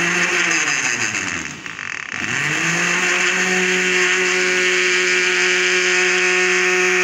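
Countertop electric blender grinding a jug of jamun, mint, crushed ice and soda. The motor spins up, slows almost to a stop about two seconds in, then starts again and runs at a steady high speed.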